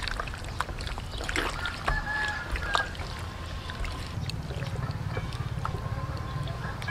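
Wet squelching and slapping of raw pig stomach as it is kneaded by hand in a liquid marinade, in irregular handfuls.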